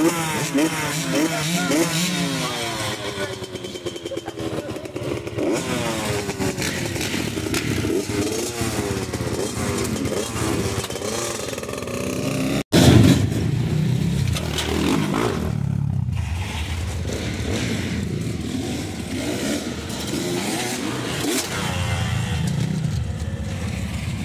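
Motocross bike engines, a smoking two-stroke Honda among them, revving repeatedly with the pitch sweeping up and down. About halfway through, after a cut, the engine sound turns steadier and lower, with bikes running near idle.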